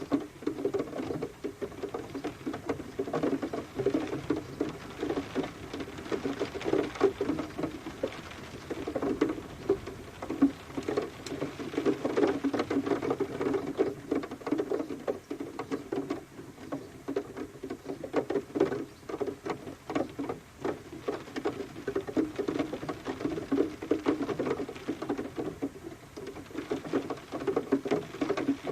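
Rain pattering: a dense, irregular run of drop hits that swells and eases.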